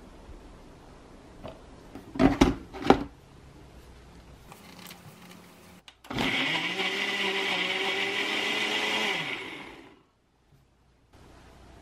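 A few loud knocks about two seconds in, then a Ninja Auto-iQ personal blender runs for about four seconds, puréeing cut tomatoes with a steady whine, and spins down.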